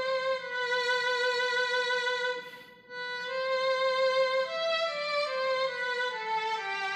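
Roland Aerophone digital wind instrument playing a slow melody in a violin-like tone. The notes are long and held, with a short break about two and a half seconds in, and the line steps downward near the end.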